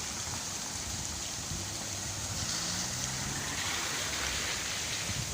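Steady rush of a waterfall-fed stream: an even, unbroken hiss of running water.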